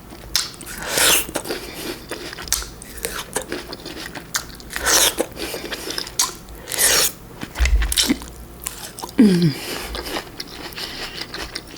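Close-miked chewing and biting of fresh fruit: wet mouth sounds in irregular bursts. A short vocal sound falling in pitch comes about nine seconds in.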